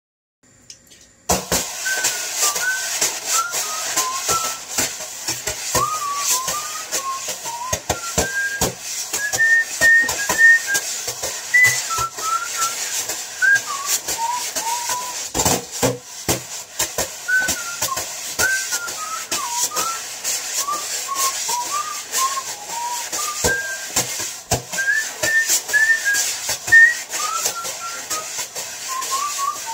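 A man whistling a melody of short notes over a rhythm of wire drum brushes swished and tapped on a box top, starting about a second in.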